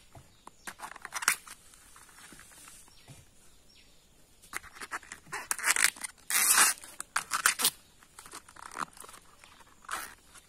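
Waxy outer bracts of a banana blossom being peeled back and snapped off by hand: crisp tearing and snapping in irregular bursts, loudest around the middle.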